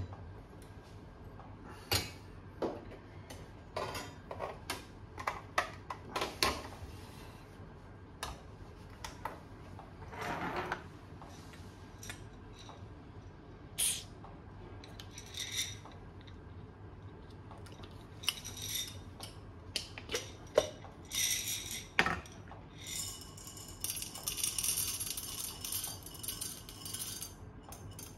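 Espresso gear being handled on a stainless steel counter: a run of separate clinks, clicks and knocks of metal and glass as a portafilter, a coffee canister and a cup are picked up and set down. A denser high rattle lasts a few seconds near the end.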